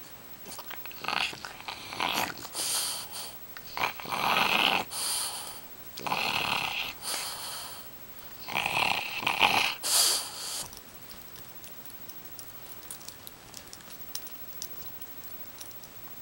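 French bulldog grunting and growling in play, a run of about seven noisy bursts over the first ten seconds, then quieter with only small rustles and ticks.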